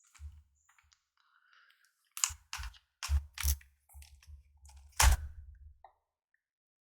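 Sharp plastic clicks and knocks from laptop parts being handled and pressed together during reassembly, each with a dull thud on the work surface. The loudest comes about five seconds in.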